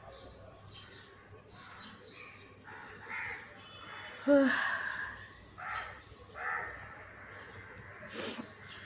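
Birds calling over and over in short separate calls, with one louder, short sound about four seconds in.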